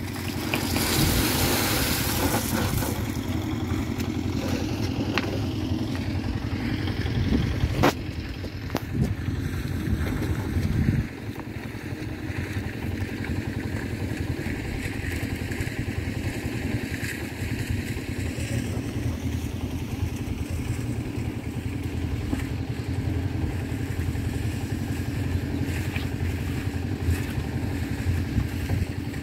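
Small engine running steadily, louder for the first ten seconds or so, then dropping suddenly to a lower, even level for the rest.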